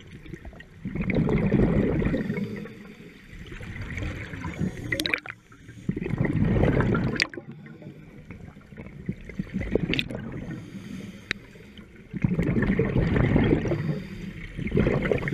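Scuba diver breathing through a regulator underwater: three loud surges of exhaled bubbles gurgling, roughly every five to six seconds, with quieter stretches between and a few sharp clicks.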